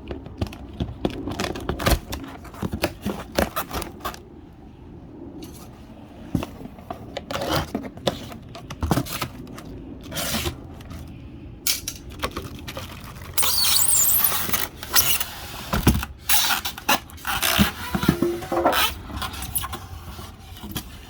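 Irregular clinks, scrapes and knocks of hard objects being handled, with a dense hissing stretch lasting about a second and a half midway through.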